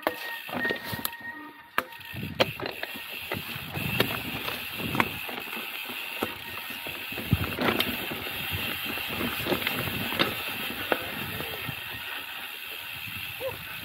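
Mountain bike rolling over a rough dirt trail: a steady rattle of tyres, chain and frame with irregular sharp knocks as it hits bumps, over a constant rush of noise.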